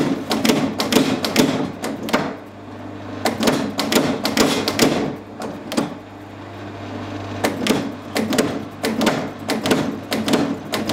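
Power hammer striking a red-hot steel crossguard bar in three runs of rapid blows, with the machine's motor humming steadily in the pauses between runs.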